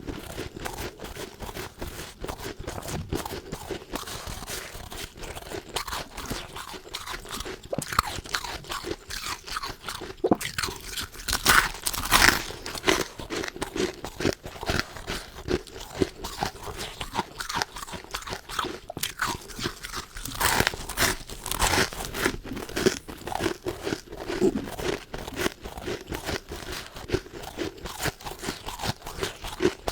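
Close-miked mouth crunching and chewing of powdery freezer frost, a dense run of irregular crunches. The loudest bites come about a third of the way in and again about two-thirds through.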